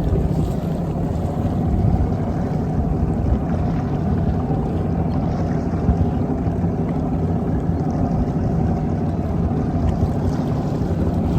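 A boat under way, its motor running at a steady pace with a low, even hum over water and wind noise.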